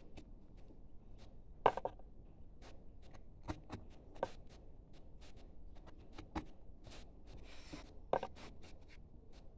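Carving mallet tapping a chisel into a wooden panel: a run of light taps, about two to three a second, with two harder, ringing blows, one about two seconds in and one near the end.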